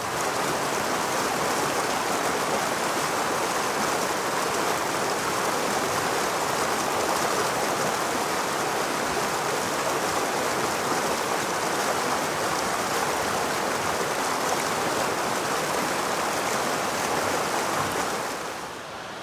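Shallow rocky mountain creek rushing over stones: a steady, even rush of water that drops to a quieter rush shortly before the end.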